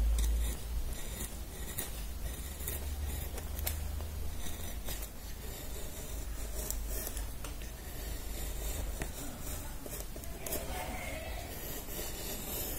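Small hand gouge paring curled shavings from a block of Swiss stone pine, a string of short, irregular scraping cuts as the fuselage is roughed out. A low hum runs underneath.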